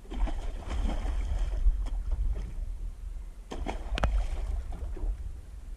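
A hooked fish thrashing and splashing at the water's surface beside a small boat. The heaviest splashing comes a little past halfway. A low wind rumble on the microphone runs underneath.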